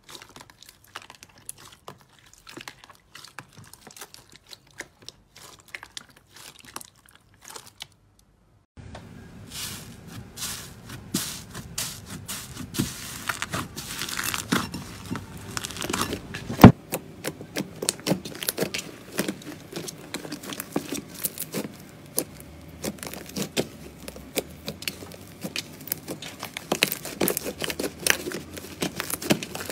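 Hands squeezing crunchy slime, with sparse crackles and clicks. After a short silence about eight seconds in, hands knead and stretch soft pink slime, with dense crackling and tearing and one sharp pop a little past halfway.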